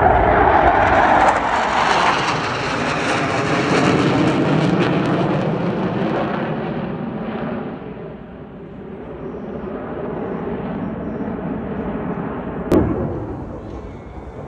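Blue Angels jet passing over with a loud roar that falls in pitch and fades away over several seconds, leaving a quieter distant jet noise. A single sharp click near the end.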